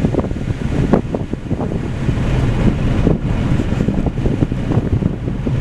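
Steady rumble of a 2011 Chevy Malibu's tyres on a dirt and gravel road, with wind noise, heard from inside the moving car.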